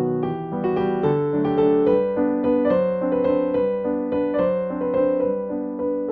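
Background music: a gentle piano or electric piano melody with steady, evenly played notes.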